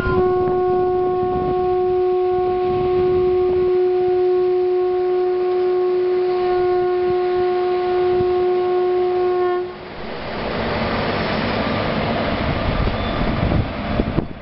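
Train horn sounding one long steady blast of nearly ten seconds, then stopping; the train's running noise, an even rushing and rattling, carries on after it.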